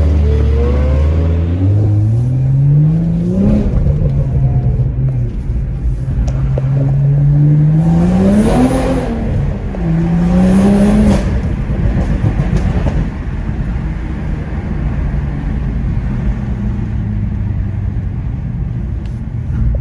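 Car engine accelerating through the gears. The pitch climbs, drops at an upshift about three and a half seconds in, and climbs again to a peak near nine seconds. Two quick shifts follow around nine and eleven seconds, then it settles to a steady cruise.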